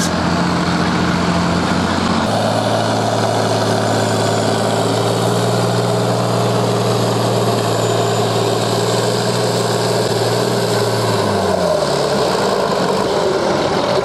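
International 1066 tractor's turbocharged diesel engine running hard at a steady pitch while pulling the weight sled. Near the end the engine speed drops away as the pull comes to a stop.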